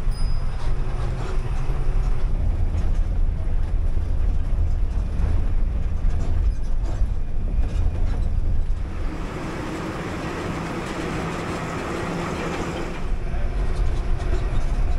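Bus running along the road: a steady low engine rumble with road noise. About nine seconds in, the rumble falls away and a higher rushing hiss takes over for about four seconds, then the rumble returns.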